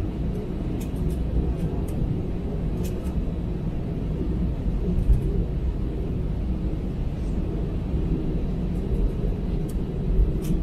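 Airbus A320 cabin noise while taxiing: the twin CFM56-5B engines at taxi thrust and the rolling airframe give a steady low rumble. Faint light ticks come through now and then.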